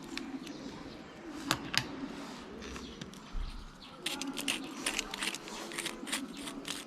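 Small clicks and rattles of an old electric soldering iron being handled and taken apart by hand, with two sharp clicks early and a quick run of clicks in the second half.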